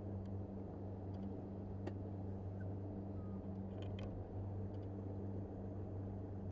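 A boat's motor running at a steady pitch while the boat is underway, a constant low hum. A few faint clicks about two and four seconds in.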